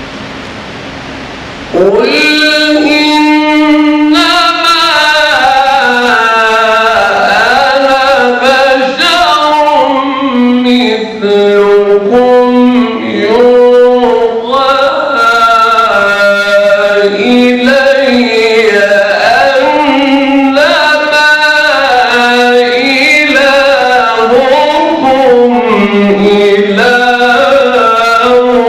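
A man's voice reciting the Quran in the melodic, ornamented mujawwad style, with long held notes that bend and waver in pitch. It comes in abruptly about two seconds in, after a steady hiss.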